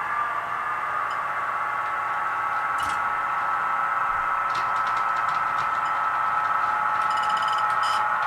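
Model diesel locomotive pulling a freight train up a grade, giving a steady mechanical whine. A few light clicks come through about halfway in, and a quick run of ticks follows near the end.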